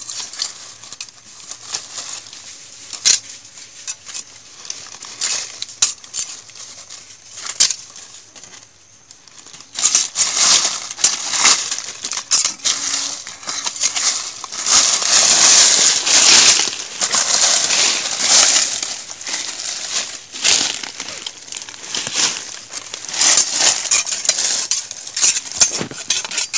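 Dry leaf litter crackling and crunching as a thin rod pokes and stirs it over loose soil. The crackling turns denser and louder from about ten seconds in for some ten seconds, then goes back to scattered crackles.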